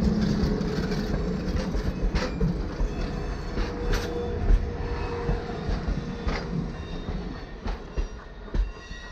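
Grand Canyon Railway stainless-steel passenger cars rolling past close by. Their wheels click over the rail joints every second or two, with a brief thin wheel squeal about midway. The rumble fades near the end as the observation car at the rear goes by.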